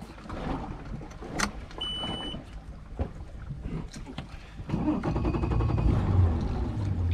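Boat engine coming up to a low, steady running rumble about five seconds in as the boat idles off to a new spot. Before that there is a knock and a short high electronic beep.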